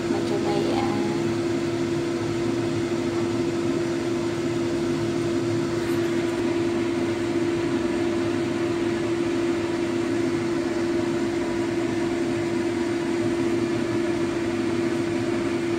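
Steady mechanical hum of a running fan or appliance motor, with one strong low tone that holds unchanged throughout.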